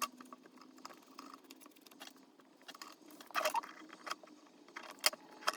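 Light clicks and small scrapes of hand tools on a model locomotive's tiny motor as its carbon brushes are cleaned, with a few sharper clicks about three and a half seconds in and twice near the end.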